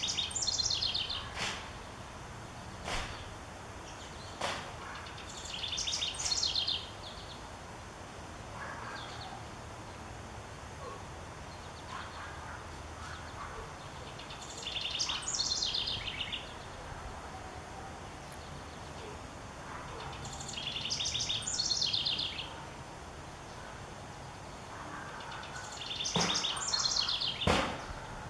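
House wren singing: five songs several seconds apart, each a rapid run of high notes that tumbles downward over about one and a half to two seconds. A few short sharp clicks fall between the songs.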